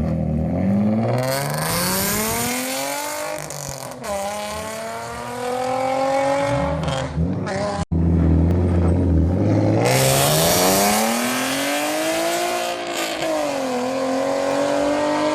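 A car engine revving: its pitch climbs over a few seconds, drops back, and climbs again. There is a brief break about eight seconds in.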